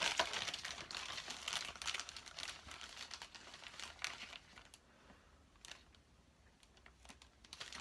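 Small plastic parts bag crinkling and tearing as it is opened by hand, busy for the first few seconds, then dying down to faint rustles and a couple of light clicks.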